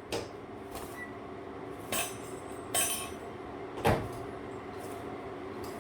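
Microwave oven door being pushed and slammed shut again and again, four sharp knocks and clunks spread over about four seconds, over a steady hum. The door is not latching and the microwave won't work.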